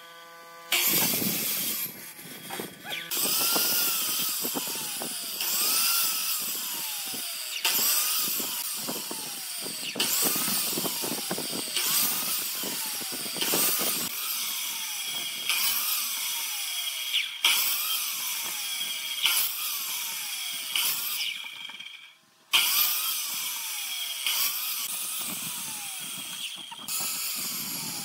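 Sliding compound miter saw making repeated partial-depth cuts into a wooden board to form a row of kerfs. About every two seconds the motor spins up, the blade cuts into the wood and the motor winds down again, a dozen or so times in a row. The sound cuts out briefly about three-quarters of the way through.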